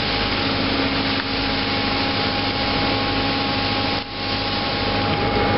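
Steady drone of running machinery with a constant whine over it, dipping briefly about four seconds in, while the tuna is hoisted from the hold.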